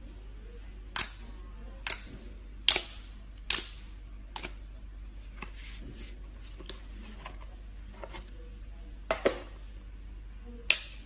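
Slime being pressed and stretched by hand, letting out sharp pops of trapped air about once a second, some loud and some faint, over a low steady hum.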